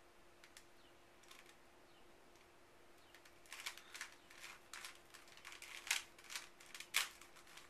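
Plastic Rubik's Cube being turned by hand, its layers clicking as they rotate: a few faint clicks at first, then quick runs of clicking from about halfway, with a couple of louder snaps near the end.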